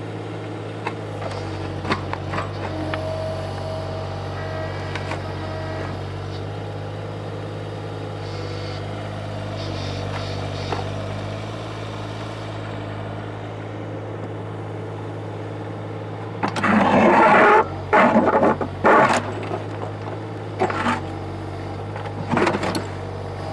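Digger engine running steadily while its bucket works at a large boulder buried in a trench. Late on comes a run of loud grating scrapes of metal on stone lasting a few seconds, then a couple of shorter ones near the end.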